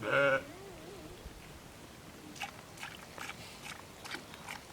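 A sheep gives one short bleat, then chews with a run of soft, irregular crunching clicks, about three or four a second.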